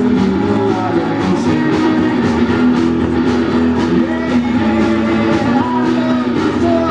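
Live garage-rock band playing loud: electric guitars over a steady drum beat.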